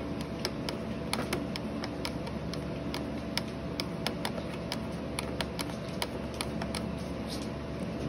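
Light, irregular clicks, a few a second, of a small nut being turned by hand onto a threaded jack bushing on a radio's metal front panel, over a steady hum of room air conditioning or a fan.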